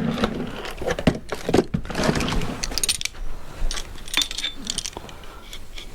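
Metal tools and engine parts clinking, rattling and knocking as they are handled, with a few brief metallic rings near the end.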